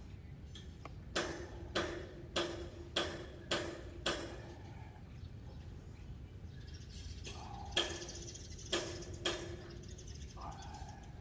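A series of sharp knocks, each with a short ring: six in a row about every half second, then a pause and three more.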